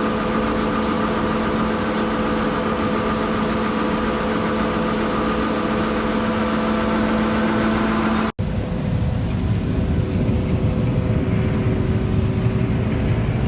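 Combine harvester running while picking corn: a steady machine hum with several held whining tones. About eight seconds in, an abrupt cut switches to a deeper, rougher rumble of the same machinery.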